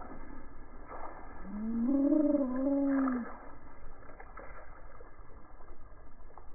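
Slowed-down audio of a water balloon being squashed and bursting in a puddle: a deep, wavering moan lasting about two seconds, then a few faint clicks and splashes.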